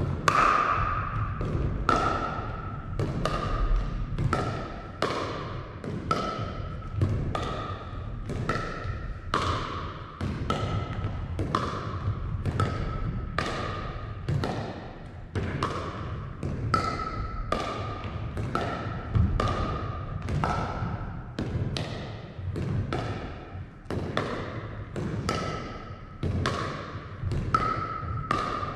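Pickleball paddles hitting a plastic pickleball in a quick exchange near the net, about two pops a second, each echoing through a large gymnasium.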